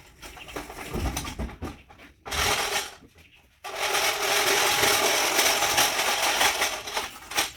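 Oranges clattering and rattling through a citrus sorting machine: a short burst about two seconds in, then a longer continuous clatter from about three and a half seconds in until near the end.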